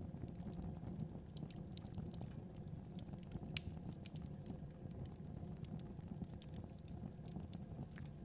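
Wood fire burning with a steady low rumble and scattered crackles and pops, one sharper pop about three and a half seconds in.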